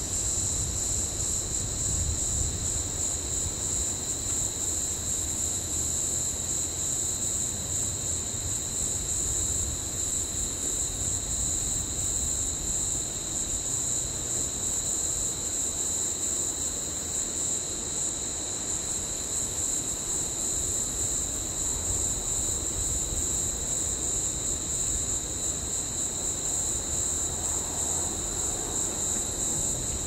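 Steady high-pitched insect chorus, trilling without a break at two even pitches.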